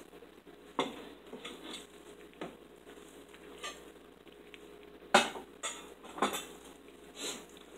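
Plate and fork clinking and knocking as supper dishes are handled and cleared from a wooden table: a few separate knocks, the loudest about five seconds in.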